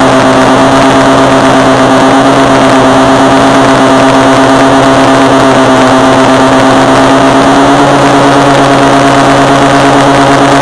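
Electric motor and main rotor of a Mikado Logo 600 SX radio-controlled helicopter, heard from a camera mounted on the helicopter itself: a loud, steady, tonal whine that steps up slightly in pitch about eight seconds in.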